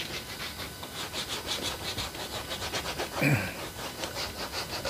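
Cloth rag rubbed back and forth over a large oil-painted canvas in quick, even strokes, several a second, smearing and blending the wet oil paint. A short grunt-like vocal sound cuts in about three seconds in.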